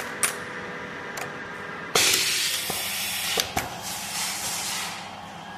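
Wire flag labeling machine running: a few sharp mechanical clicks over a steady machine hum, then from about two seconds in a loud hiss of air for about three seconds, broken by several clacks, that fades out near the end.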